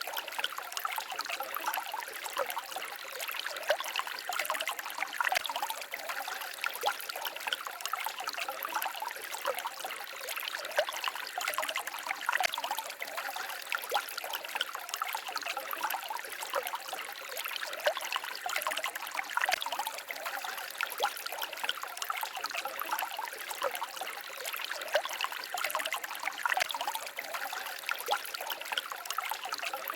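Small forest stream babbling and trickling steadily over stones, a busy patter of small splashes with little low rumble.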